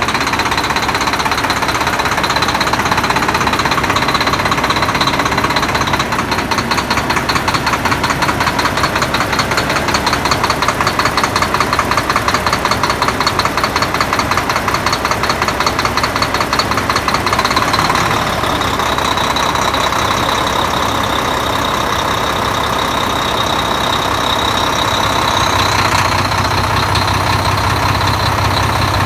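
Volvo D13 diesel truck engine being started hard after a timing gear (double idler gear) repair: a long stretch of rhythmic, pulsing cranking and rough firing, then near the end a deeper, steady running sound as it catches and settles toward idle.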